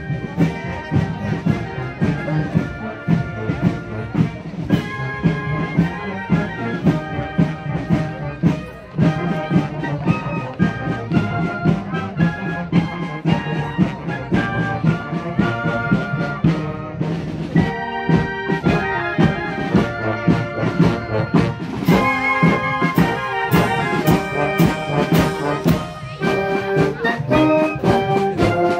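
Marching wind band playing, brass and saxophones over a steady drum beat of about two strokes a second. Cymbal strikes join in about two-thirds of the way through, as the music grows brighter.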